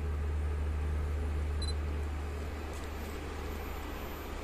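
Freight train approaching from a distance: a low, steady drone. A brief high beep sounds once, a little under two seconds in.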